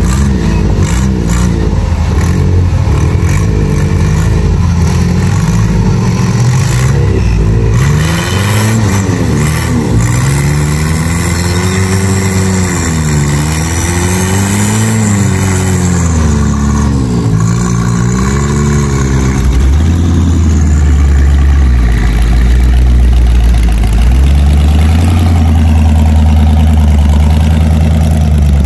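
Off-road rock crawler's engine running under load, revving up and down several times through the middle, then settling into a steadier, deeper drone for the last several seconds.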